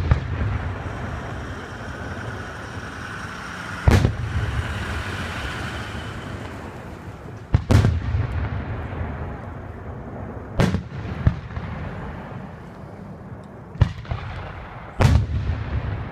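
Aerial fireworks shells bursting: about five loud bangs a few seconds apart, each trailing off in a long low rumble.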